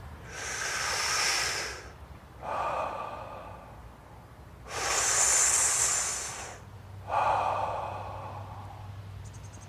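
A man taking two slow, deep breaths into the stomach. Each is a long draw of air with a bright hiss, followed by a softer, fading release.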